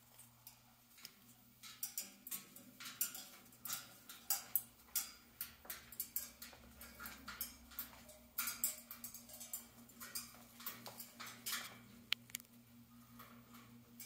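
Amazon parrot chewing and biting at a wood and leather toy: an irregular run of sharp clicks and crunches that starts a couple of seconds in and dies down near the end.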